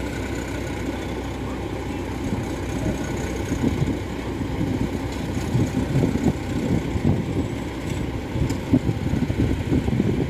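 Kubota DC-105X rice combine harvester's diesel engine running steadily while the machine stands still and grain is bagged from its outlet: a continuous low rumble that grows a little uneven after the first few seconds.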